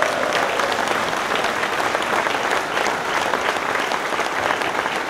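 An audience applauding, many hands clapping steadily.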